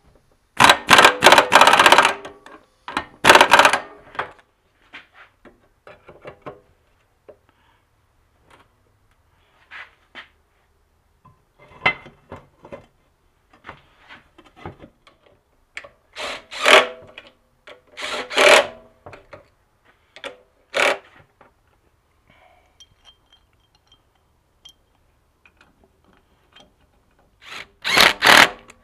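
An impact wrench hammering in two loud bursts in the first few seconds, tightening the pump impeller onto its shaft. Then light clatter of metal parts being handled, and several more short power-tool runs later on as the pump housing bolts are driven in.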